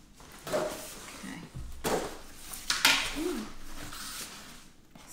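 Packaging rustling and small hard parts of a compact tripod knocking and clicking as it is unpacked and handled, with sharper clatters about two and three seconds in.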